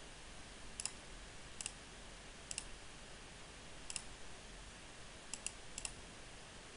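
Computer mouse button clicking seven times at uneven intervals, the last three close together, faint over a low background hiss.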